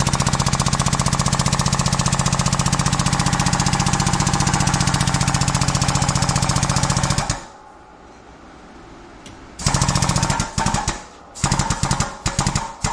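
Air-over-hydraulic bottle jack on a shop press, its air pump chattering rapidly and evenly for about seven seconds as the ram is driven down. After a pause come several short bursts of the same chatter as the ram is inched onto a piston and rod set to press out the wrist pin.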